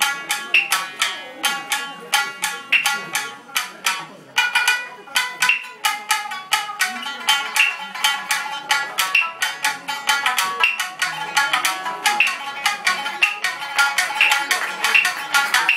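Solo shamisen struck with a large plectrum, playing a quick run of notes; each note starts with a sharp click of the plectrum hitting the skin, with a brief pause about four seconds in.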